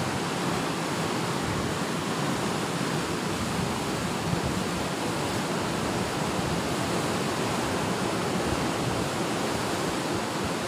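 Sea surf breaking and washing against a rocky shore, a steady rush with no distinct single waves standing out.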